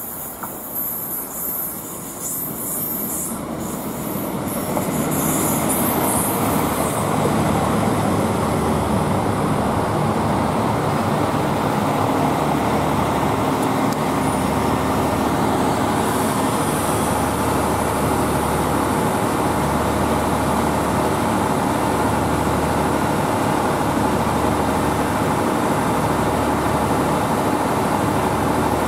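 Northern Ireland Railways Class 3000 diesel multiple unit drawing into the platform, with high squealing in the first few seconds as it brakes and a rise in level as it arrives. It then stands with its diesel engines running in a steady hum.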